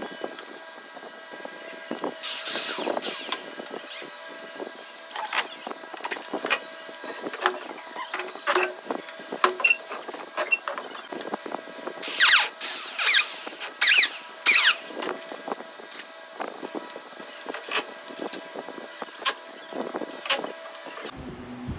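Cordless drill driving screws into a wooden frame in short bursts, the loudest bursts about twelve to fifteen seconds in, mixed with sharp knocks and clatter of wood and tool being handled. The sound cuts off suddenly near the end.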